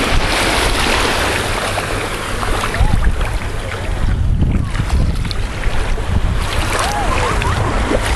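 Wind buffeting the microphone over the steady hiss of shallow surf washing around the feet at the water's edge.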